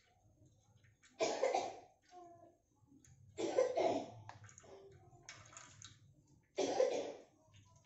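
Three short, loud coughs about two and a half seconds apart, over the faint trickle of cooking oil being poured from a pouch into oil already in a wok.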